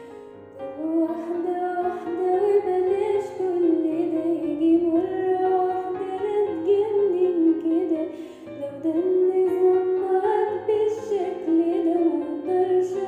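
A female voice singing a slow melody over a soft piano or keyboard accompaniment: an amateur home-recorded cover of the song.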